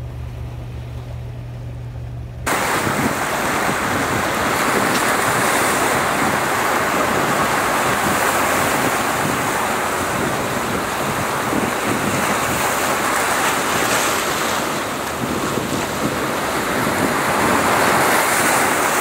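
Sea surf washing against a rocky shore, with wind on the microphone, setting in abruptly about two and a half seconds in and holding steady. Before it, a quieter low hum.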